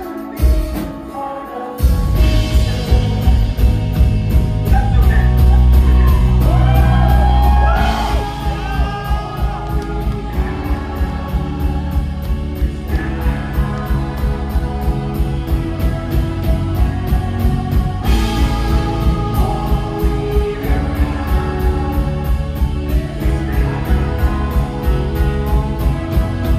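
Live rock band playing with a singer: a quiet start, then the full band with heavy drums and a steady beat comes in about two seconds in, heard from the crowd in a large hall.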